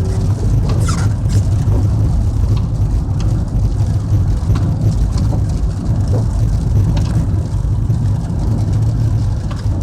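Steady low rumble of a car's engine and tyres, heard from inside the cabin while driving on a highway.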